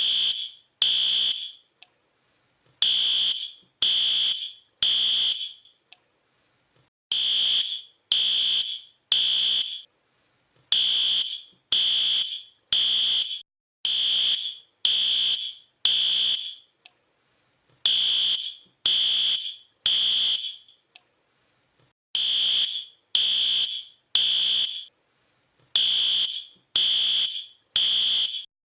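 Fire alarm sounding a loud, high-pitched electronic beep. Each beep lasts about half a second and they repeat about once a second, in runs of three or more broken by pauses of about a second.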